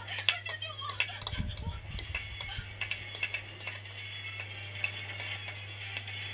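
Cutlery clicking and clinking against a dish while eating: a string of sharp, irregular clicks over a steady low hum, with a brief low rumble of handling about a second and a half in.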